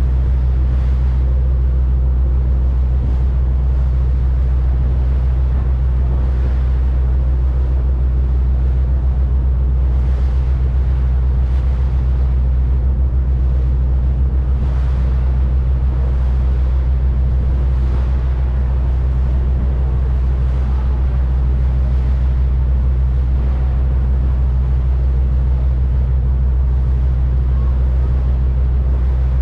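A boat's engine running steadily at constant speed: a loud, even low drone with a deep hum that does not change.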